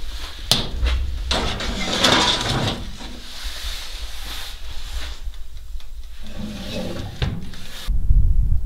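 A steel pot being set into a small electric oven: a click, then metal scraping and rubbing as it slides onto the rack, with lighter handling noises after. Near the end, wind rumbles on the microphone.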